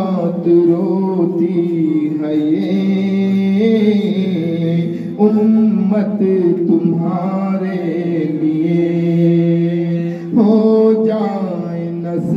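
A man singing a devotional Urdu salam (naat) into a microphone, drawing out long, bending, held notes with no words clearly sung, starting a fresh phrase about five seconds in and again near ten seconds.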